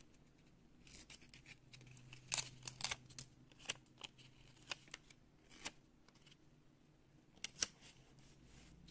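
Paper sticker being peeled off its backing and pressed onto a notebook page: quiet, scattered paper crackles and sharp clicks.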